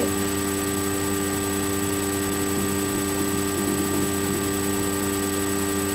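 Steady background hum and hiss with several constant tones, and no distinct event.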